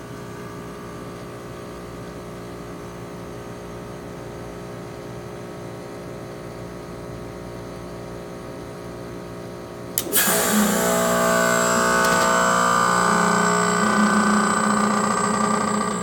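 Heat pump compressor running with a steady hum, outdoor fan off. About ten seconds in, defrost kicks in: the reversing valve shifts over with a sudden loud rush of refrigerant hiss, and the compressor's hum turns much louder and deeper as it starts pumping hot gas back to the outdoor coil.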